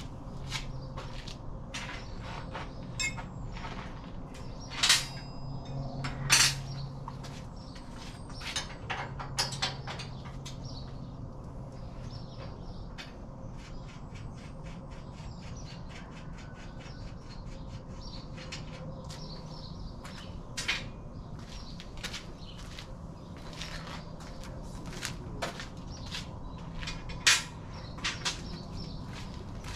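Scattered metal clicks and clanks of hand tools working on a dune buggy's rear suspension, with a few louder knocks. Birds chirp in the background.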